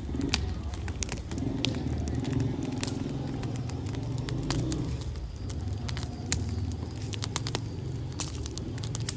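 Large open wood fire burning: a steady low roar of flames with scattered sharp crackles and pops from the burning logs.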